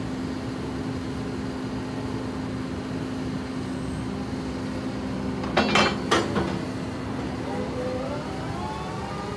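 Caterpillar MH3022 wheeled material handler running steadily as its upper structure swings, with two sharp knocks about six seconds in and a whine rising in pitch near the end.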